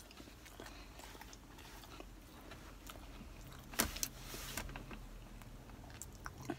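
A person chewing a mouthful of crispy chicken sandwich, with soft mouth clicks and a sharper click and crunch about four seconds in, over a low steady hum.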